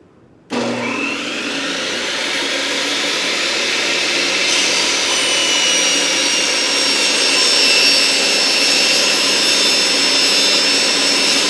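Portable table saw switched on, its motor and blade whining up to speed, then running steadily while a wooden board is ripped along the fence. A sharper high whine joins about four and a half seconds in as the board is fed into the blade.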